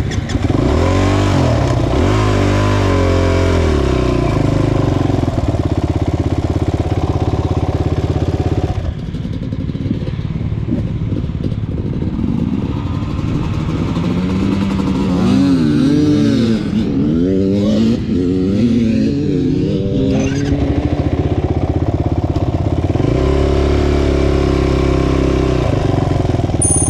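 Off-road vehicle engine running close by, revved up and down several times at the start and blipped rapidly up and down in the middle, with steady running between and near the end.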